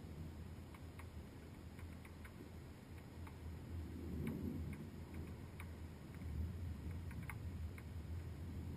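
Muffled storm sound through a waterproof camera housing: a low rumble that swells and fades, with scattered sharp ticks, a few per second, typical of raindrops striking the housing and car roof.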